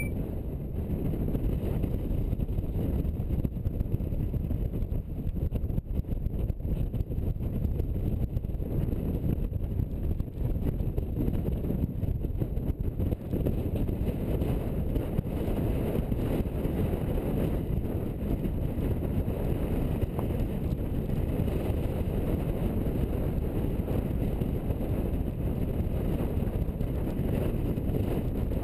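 Car driving down a rough, grooved concrete mountain track: a steady low rumble of tyres on the rough surface and engine, picked up by a microphone mounted on the outside of the car.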